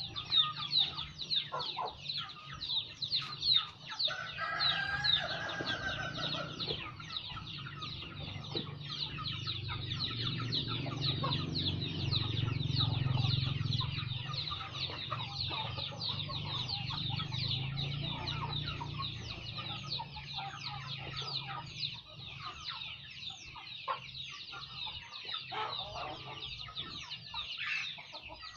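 Chickens clucking over a fast, continuous high peeping from the flock, with a rooster crowing about four seconds in. A few wooden knocks sound in the first seconds, and a low hum swells towards the middle and fades away.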